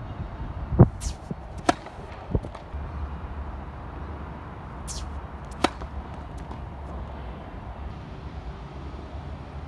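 A handful of sharp knocks from tennis balls striking the hard court and rackets, spaced irregularly, the loudest about a second in, over a steady low outdoor rumble.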